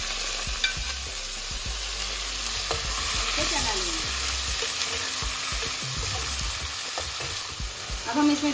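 Sliced onions sizzling as they fry in hot oil in a metal pot, stirred with a perforated metal spoon, with a few clicks of the spoon against the pot. The steady sizzle shows the oil is hot.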